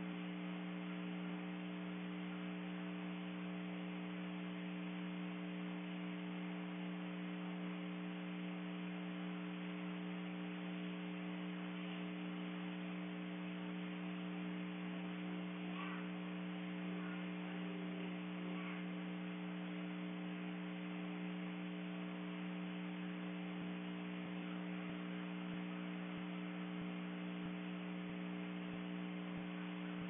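A steady low hum with several overtones, unchanging throughout, with a few faint short sounds about halfway through.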